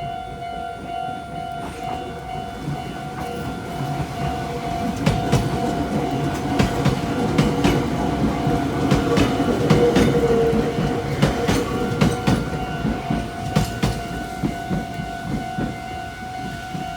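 Japanese level-crossing warning bell ringing steadily while a Meitetsu electric train passes over the crossing. The train's wheel clatter over the rail joints builds to a peak about halfway through, then fades.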